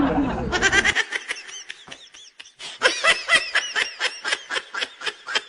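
Rapid, high-pitched giggling laughter in quick repeated bursts; a song cuts off about a second in as the laughter starts.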